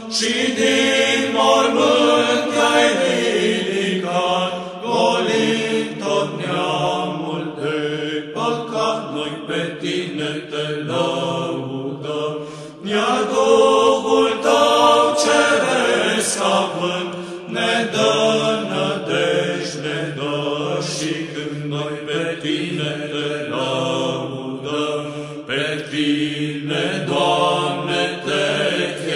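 Background music of voices chanting in long, gliding lines.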